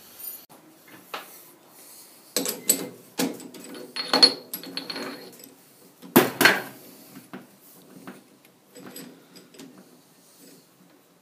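Metal handling clatter: a small metal ring and metal parts knocking and clinking as the ring is fitted by hand into a stopped lathe's three-jaw chuck. There are several sharp knocks, the loudest at about two and a half, four and six seconds in, with lighter clinks after.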